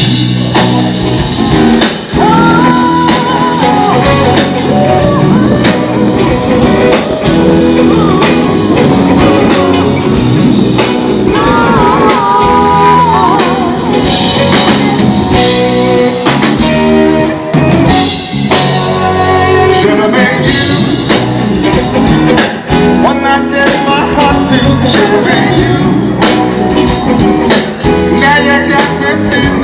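Live blues-rock band playing loud through a PA: electric guitar over a drum kit, with pitched lines that bend up and down in places.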